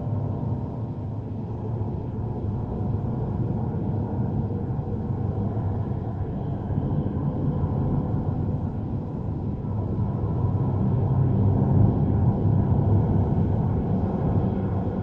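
Horror suspense sound effect: a low, steady rumbling drone that swells a little louder near the end.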